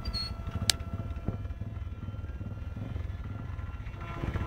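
Wind buffeting the microphone with a faint, steady whine from a foam RC F-35 model jet's electric motor flying high overhead, and a single sharp click under a second in.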